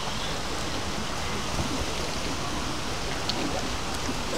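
Steady rushing noise like running water beside an outdoor swimming pool, even throughout with no clear splash or knock.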